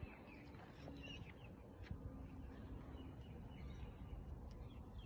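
Faint birdsong: a bird calling in short runs of quick chirps a few times, over a steady low background rumble.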